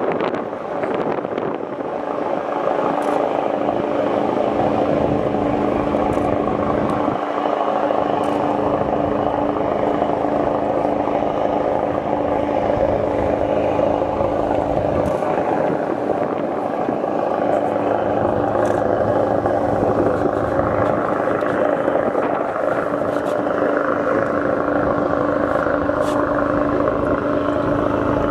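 Boat engine running steadily under way, a constant drone with a held hum.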